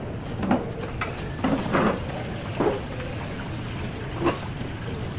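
Irregular clinks and knocks, like kitchen utensils against pans or bowls, over a steady low hum.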